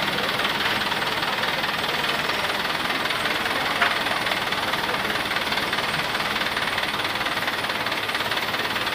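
Crane engine running steadily under load with a rapid knocking clatter while it holds a slung generator. One sharp click about four seconds in.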